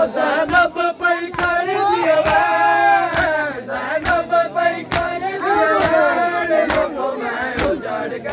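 Crowd of men chanting together while beating their chests in unison in Shia matam. Sharp hand-on-chest slaps land about one and a half times a second under the chant.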